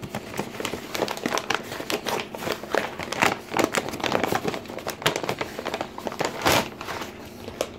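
Brown kraft-paper wrapping crinkling and rustling as it is unwrapped by hand: a dense, irregular run of crackles, loudest about six and a half seconds in.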